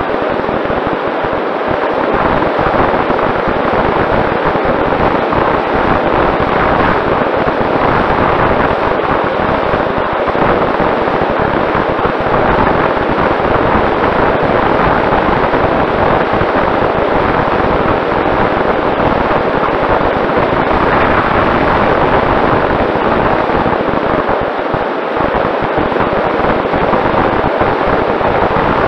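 Onboard audio of a Mini Talon RC plane in flight: the loud, steady rush of wind over the airframe mixed with its Sunnysky 2212 brushless motor and propeller running at cruise, with a faint steady whine.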